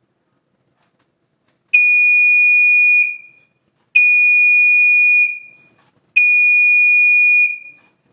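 Pyrotector 30-77ARF5 photoelectric smoke alarm's Star Buzzer piezo horn going off in response to smoke, with a deep tone. It sounds about a second and a half in as three long, steady beeps of a little over a second each, one about every two seconds.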